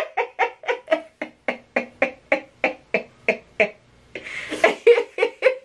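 Two people laughing hard together, a rapid run of ha-ha pulses about four a second. About four seconds in there is a breathy gasp, then a few more bursts of laughter before it cuts off suddenly.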